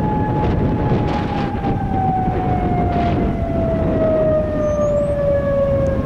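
Federal Signal Modulator 6048 tornado siren sounding one steady tone that, about a second in, begins a slow, even fall in pitch. Heavy wind rumble on the microphone runs underneath.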